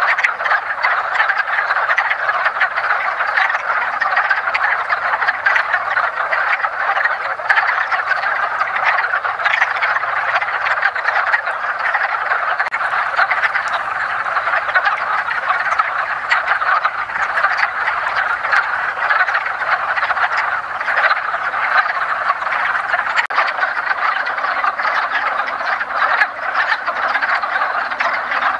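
A chorus of many male wood frogs calling together, their overlapping calls merging into a steady, unbroken din: the breeding chorus of a vernal pool in early spring.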